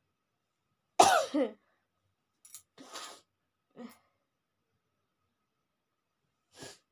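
One loud, sudden burst of breath and voice from a person, like a sneeze or a hard cough, in two quick parts. Softer sniffs and breaths follow.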